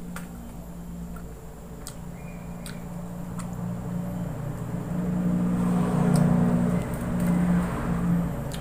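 A motor vehicle engine running, a steady drone that grows louder from about halfway in, peaks, then eases near the end. A few short sharp clicks come in the first half.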